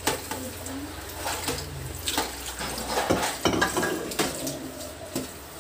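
Cooking oil heating in an aluminium wok, hissing and crackling, with a scatter of small clicks and pops.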